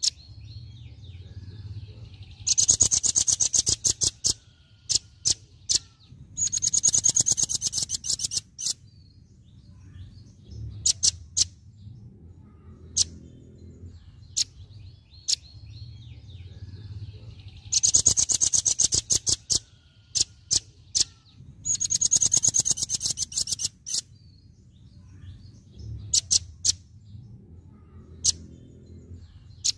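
Velvet-fronted nuthatch giving its rapid 'tembakan' (shooting) call: four loud, very fast rattling bursts of high notes, each about two seconds long, with single sharp high notes in the gaps between them.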